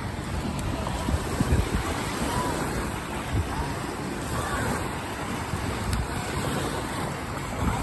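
Small lake waves washing and lapping onto a sandy beach, with wind buffeting the microphone in low rumbles. Faint voices come and go in the background.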